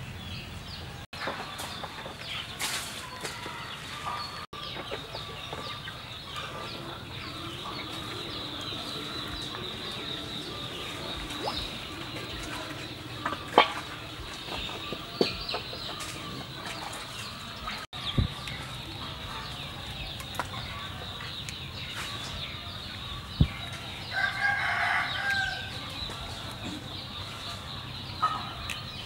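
Chickens clucking, with a rooster crowing once near the end, over a steady high-pitched hum and a few sharp clicks.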